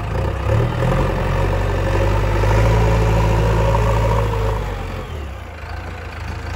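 JCB 3DX backhoe loader's diesel engine running as the front loader bucket is raised and tipped. The engine note rises about half a second in, holds, then eases off about five seconds in.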